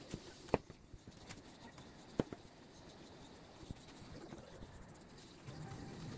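Kitchen knife cutting into a watermelon on a wooden cutting board, with a few sharp knocks of the blade against the board, the loudest about half a second and two seconds in.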